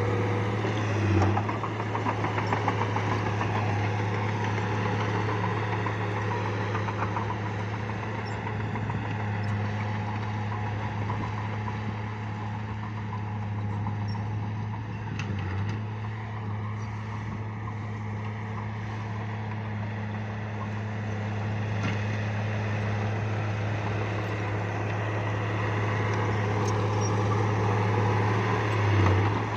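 Bulldozer's diesel engine running at a steady pitch, with brief louder moments about a second in and again near the end.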